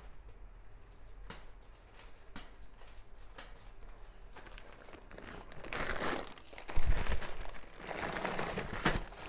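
Plastic packaging crinkling as bangles are handled and pulled from their bags: a few faint clicks at first, then steady crackling over the last few seconds, with one heavier thump about seven seconds in.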